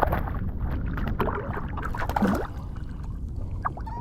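Wind rumbling on the microphone over water splashing and sloshing, with several short sharp splashes and knocks in the first two and a half seconds.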